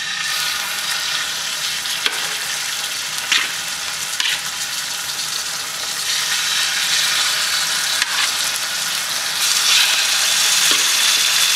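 Raw chicken thighs sizzling in hot walnut oil as they are laid skin side down in a stainless steel pan. The sizzle grows louder about halfway through and again near the end as more pieces go in, with a few short clicks of metal tongs against the pan.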